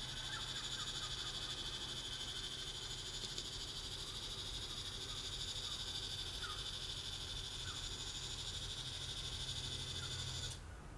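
Motor of a DIY motorized camera slider, made from scrap printer parts, running with a steady high-pitched whine over a low hum as it drives the camera along the rail. It stops suddenly about ten and a half seconds in.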